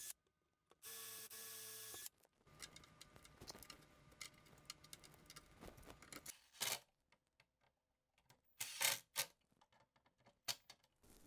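Cordless drill motor running steadily as it bores through a plywood template into a cabinet door: it stops, restarts about a second in and stops again near two seconds. Then small handling clicks, and a few short loud bursts from a cordless impact driver driving the screws of a brass cabinet pull, about six and a half and nine seconds in.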